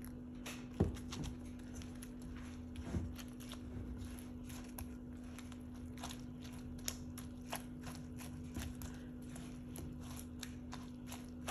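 Silicone spatula pressing and breaking up milk-soaked bread in a karahi: soft squelches and light taps against the pan, with a louder knock about a second in and another about three seconds in. A steady faint hum runs underneath.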